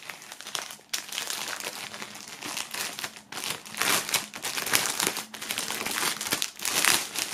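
Clear plastic film bag crinkling and rustling as it is peeled open and a folded T-shirt is pulled out of it, in irregular bursts that are loudest around the middle and near the end.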